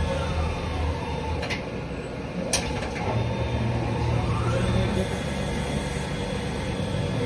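CNC machine running while cutting a chess bishop: a steady motor hum under a whine that slides down in pitch over the first second or so and rises again before the midpoint, with two sharp clicks in between.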